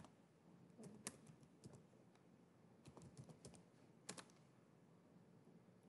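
Faint typing on a computer keyboard: scattered keystrokes, with a quick run of several keys about three seconds in and one more key about a second later.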